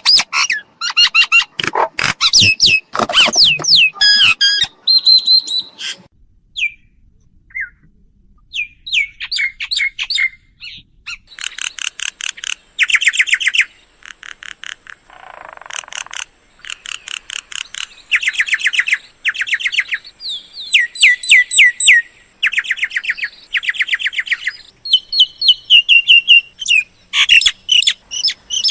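Mynas calling: harsh squawks and whistles, then repeated one-second bursts of fast rattling chatter.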